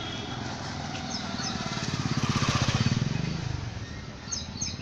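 A small-engined motor vehicle, likely a motorcycle, drives past. Its engine grows louder to a peak about two and a half seconds in, then fades away.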